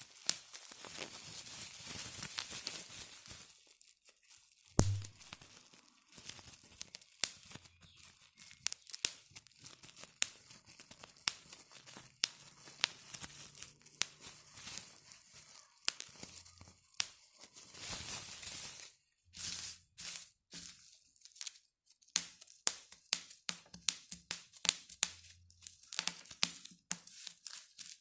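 Bubble wrap being squeezed and popped by hand: many sharp pops in quick, irregular succession over the crinkle of the plastic sheet. Stretches of crinkling come near the start and about two-thirds through, and the pops get denser and crisper in the second half.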